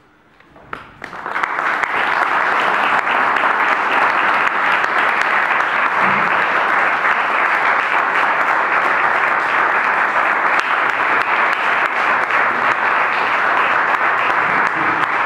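Audience applauding, building up about a second in and then going on steadily.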